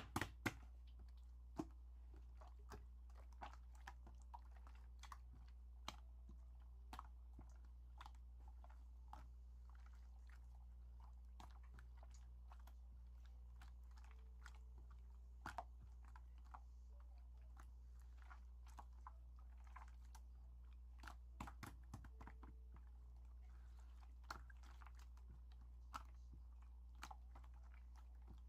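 Slime being handled, squished and poked, giving faint irregular sticky clicks and small pops over a steady low hum.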